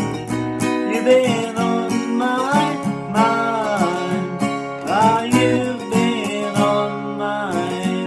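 Acoustic guitar strummed steadily, with a voice singing a wordless melody over it from about a second in.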